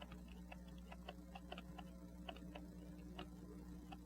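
Faint, irregular small clicks, several a second, as a screwdriver backs a tiny screw out of the balance cock of an 18-size Rockford pocket watch movement, over a steady low electrical hum.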